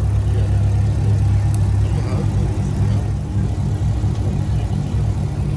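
Chevrolet Camaro SS's straight-piped V8 running at a steady idle, a deep even drone with no revving. The engine has a horrible misfire that is being diagnosed.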